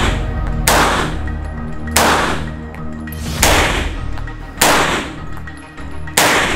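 CZ P-09 9mm pistol fired six times in slow, deliberate shots about one to one and a half seconds apart. Each shot rings on in the reverberant indoor range, with background music playing underneath.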